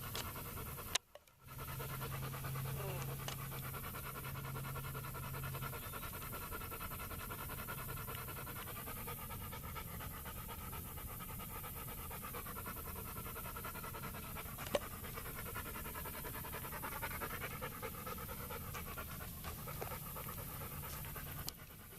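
Dog panting steadily. The sound cuts out briefly about a second in.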